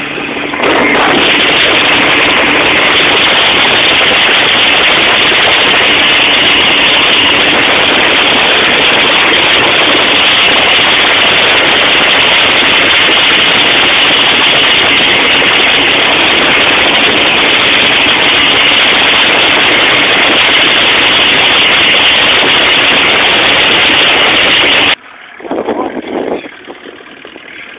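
Loud, distorted roar of a powerboat running at speed, its Mercury outboard and rushing wind and spray overloading the phone microphone. It cuts off suddenly near the end, leaving much quieter water and engine sound.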